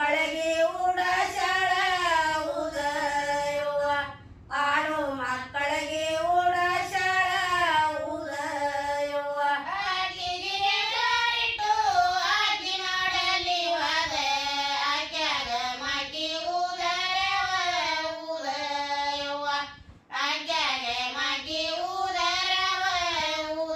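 A group of women singing a Kannada folk song from North Karnataka in unison, with short breaks between phrases about four seconds in and again near the end.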